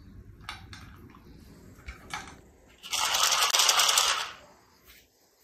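Dog eating dry kibble from a plastic slow-feeder bowl: scattered clicks of kibble against the bowl, then a loud, dense rattle about three seconds in that lasts just over a second.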